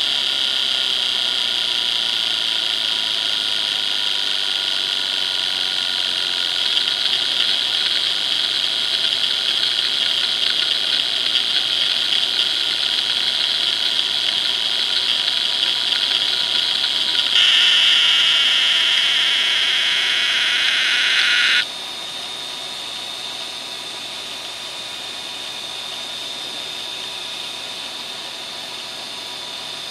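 Western Digital WDAL2540 2.5-inch 540 MB IDE hard drive running a seek benchmark: the heads seek continuously across the platters, a dense high buzz over the drive's whine. A little past the middle it turns louder and harsher for about four seconds, then cuts off suddenly, leaving a quieter, thin high whine while the heads make short track-to-track seeks.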